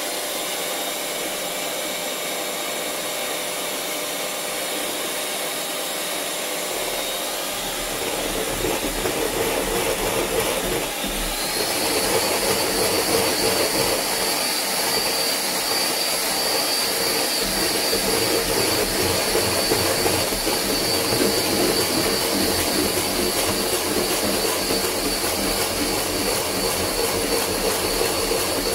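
Electric hand mixer whipping heavy cream in a steel bowl, its motor and beaters giving a steady whine. About a third of the way in it gets louder and then steps up to a higher-pitched whine as the speed is turned up, once the cream has started at low speed.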